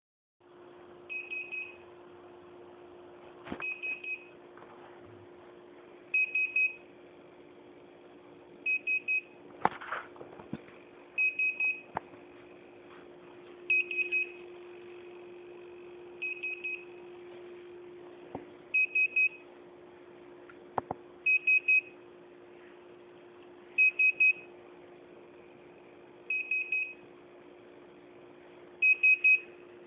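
Hitec Aurora 9 radio-control transmitter beeping: quick bursts of about three short high beeps, repeating about every two and a half seconds. A steady low hum runs underneath, with a few clicks scattered between the bursts.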